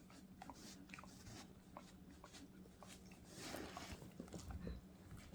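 Near silence with faint scattered clicks and rustles, a little busier in the second half.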